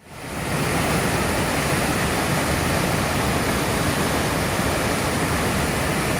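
Waterfall rushing: a steady, even noise of falling water that fades in at the start.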